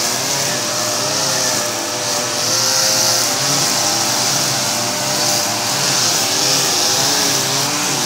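Brushcutter (string trimmer) engine running under load as it is swung through long grass, its pitch rising and falling again and again, with a steady high hiss from the cutting line.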